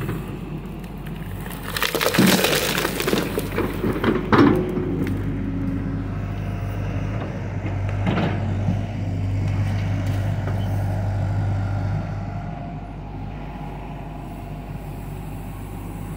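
John Deere 60G compact excavator's diesel engine running under hydraulic load, its steel bucket scraping and crunching through soil and stones in the first few seconds. The engine hum grows louder and steadier for several seconds in the middle, then eases near the end.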